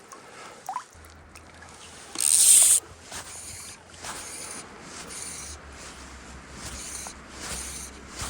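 Moving river water hissing, with soft surges about once a second and a brief loud splash-like rush about two seconds in.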